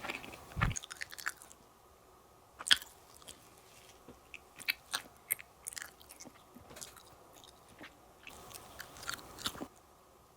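A person chewing and biting cake close to the microphone: irregular clusters of short, wet mouth clicks with quieter pauses between bites.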